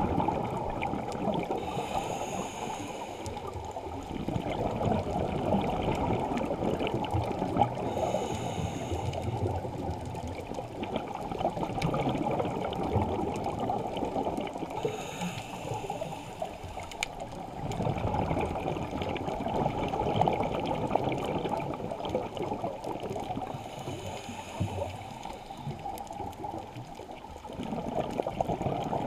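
Scuba regulator breathing heard underwater through the camera housing. About every six to seven seconds there is a short hiss of an inhale, and each is followed by a long, muffled rush of exhaled bubbles.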